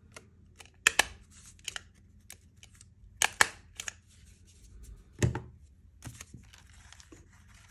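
Paper and card being handled on a wooden craft desk: scattered crisp clicks and rustles, with a heavier knock about five seconds in.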